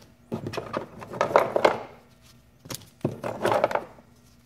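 A pile of old cardboard tree air fresheners being handled and shuffled by hand, rustling and clicking in two short bursts.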